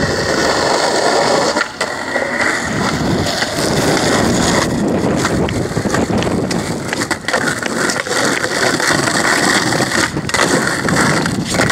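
Skateboard wheels rolling over rough asphalt close by, a continuous rushing noise, broken by several sharp clacks of the board striking the ground.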